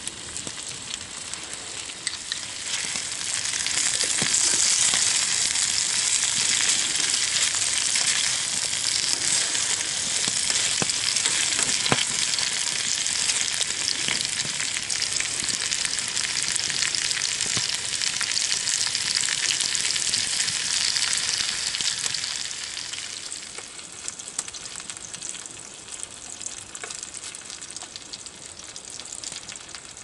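Chopped potatoes, carrots, tomatoes and a meatball frying in a metal pan over a campfire: a steady sizzle that swells a few seconds in and drops back to a softer sizzle near the end.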